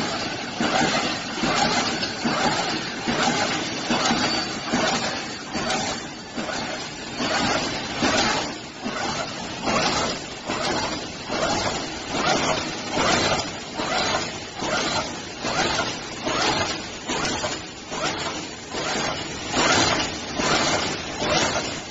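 Automatic wire mesh welding machine running, its row of welding heads cycling in an even, repeating rhythm of a little more than one stroke a second.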